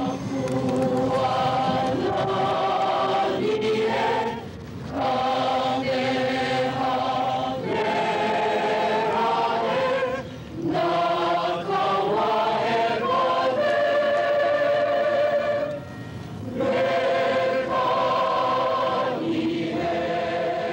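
A choir singing a slow, hymn-like song in long phrases, with short breaks roughly every five or six seconds.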